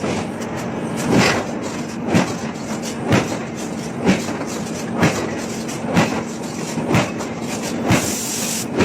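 Heavy forging hammer striking a large hot steel workpiece about once a second, over a steady machine hum. A short hiss comes about eight seconds in.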